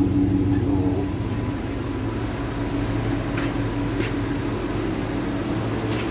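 A steady low mechanical hum, with a few faint clicks partway through.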